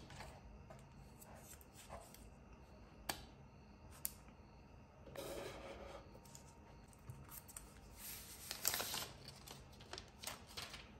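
Smartphone unboxing handling sounds: a few light clicks and taps of the cardboard box and phone, then paper and plastic packaging rustling and crinkling, busiest near the end as the plastic film is slid off the phone.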